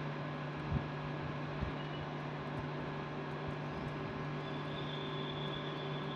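Steady running noise of a train: a constant low hum under a broad rumble, with two soft knocks in the first two seconds and a faint high whine coming in past the middle.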